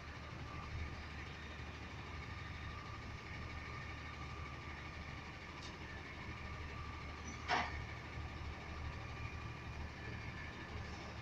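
Garbage truck engine running steadily at a distance, with a faint steady whine above the rumble. One sharp clank about seven and a half seconds in.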